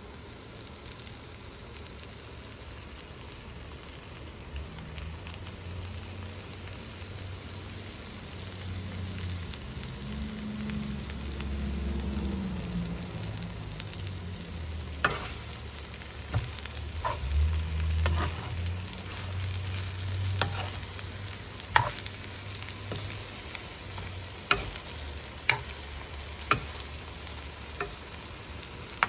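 Bitter melon and egg sizzling in a wok as they are stir-fried with a spatula. From about halfway, sharp knocks ring out several times, a few seconds apart, as the spatula strikes the wok.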